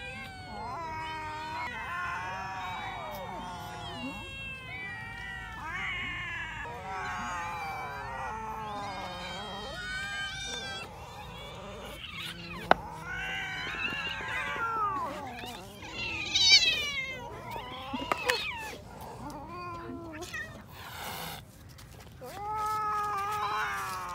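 A crowd of cats meowing over one another, many overlapping meows rising and falling in pitch, as they beg for food. A single sharp knock comes about halfway through.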